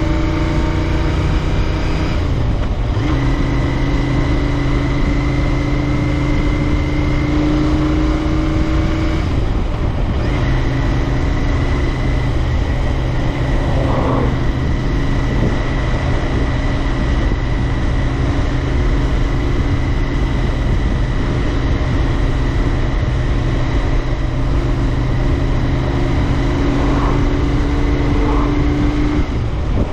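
Royal Enfield Interceptor 650's parallel-twin engine pulling steadily on the road, its note rising slowly in each gear. It shifts up twice, with a brief break in the sound and a lower note after each change. A steady wind rumble runs underneath.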